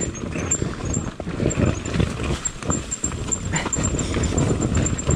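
Two-stroke enduro motorcycle engine running at low revs with an uneven, pulsing beat.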